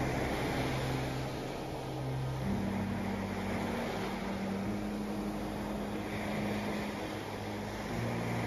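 Small waves washing up a sandy beach, with a low steady hum underneath that shifts to a new pitch about two and a half seconds in and again near the end.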